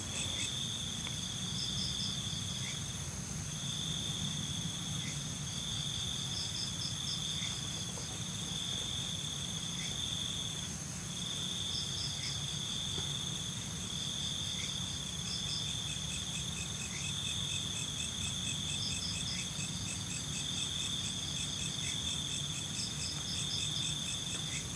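Crickets and other insects calling: a high, continuous trill that breaks off briefly every second or two, with faster, pulsing chirps from other insects above it and a low, even rumble underneath.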